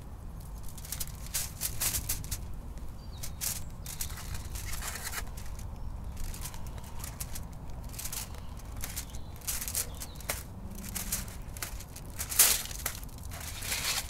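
Aluminium foil crinkling under hands as a whole dorado is handled on it, then a knife scraping and crunching as it scores the fish's skin: a run of short sharp crackles, the loudest near the end.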